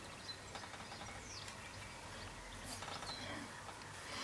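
Quiet room noise with a few faint, short bird chirps.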